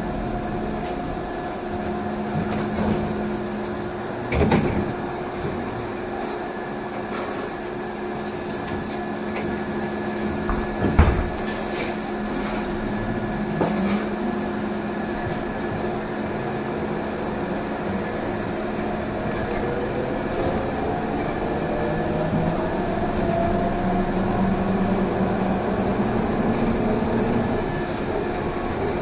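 Inside a trolleybus on the move: a steady electrical hum with a couple of knocks in the first half, the louder about eleven seconds in. In the second half the electric traction motor's whine slowly rises in pitch as the bus gathers speed.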